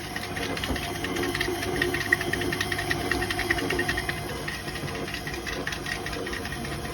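Electric food mixer running steadily with a whisk attachment, beating stiff shortbread dough; the whisk is the wrong attachment for this dough, which calls for the beater.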